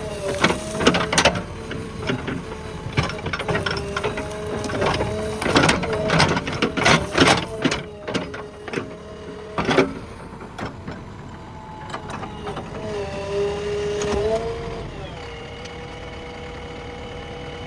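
JCB 3DX backhoe loader's diesel engine running, with many sharp knocks and clanks from the working machine during the first ten seconds or so. Near the end the engine note dips and settles to a steadier, quieter hum.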